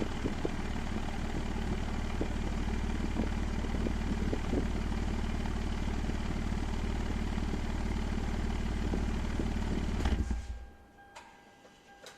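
Perodua Axia's three-cylinder engine idling steadily through an aftermarket JS Racing exhaust, then shutting off about ten seconds in. Afterwards a faint steady high tone and a couple of light clicks remain.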